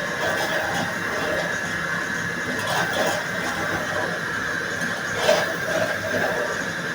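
Bamboo shoot slicing machine running, with a steady high whine and an irregular clatter of cutting, and one sharper knock about five seconds in.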